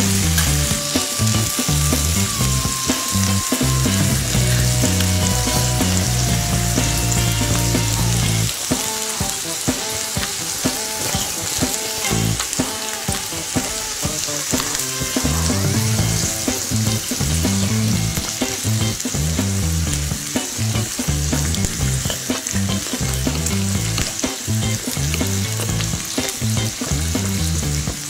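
Beef slices sizzling in a hot stone-coated grill pan, a steady frying hiss with small crackles.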